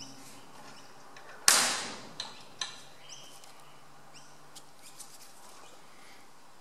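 Small birds chirping in short high calls in the background. About a second and a half in, a single sharp crack that fades over half a second, followed by two lighter clicks.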